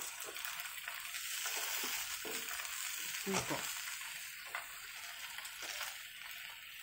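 Fried noodles sizzling in a stainless steel wok while a spatula stirs them together with pea shoots, with a few short scrapes and knocks of the spatula against the wok.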